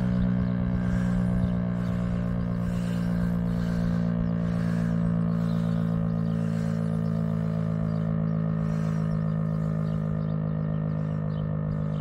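Federal Signal STL-10 outdoor warning siren sounding a steady low tone, its upper tones swelling and fading about every two seconds.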